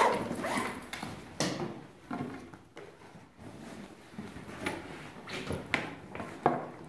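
Nylon sports bag being handled and packed: fabric rustling, with several separate knocks and clicks as things are set down on the wooden desk.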